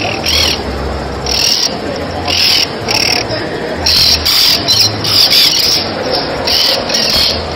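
Many birds chirping and calling in short, irregular, high-pitched bursts over a dense background of calls. A low hum comes and goes underneath.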